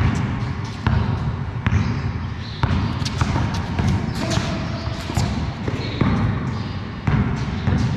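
Basketball dribbled on a bare concrete floor: sharp, irregular bounces that echo in a large, hard-walled garage hall.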